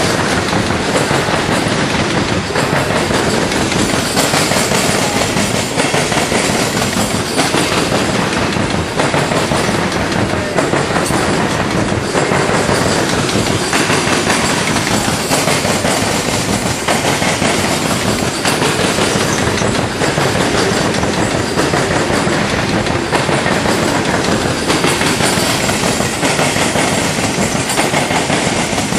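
Freight train of coal hopper cars rolling past close by: a loud, steady rumble and rattle of steel wheels on rail, with a running clickety-clack from the wheels.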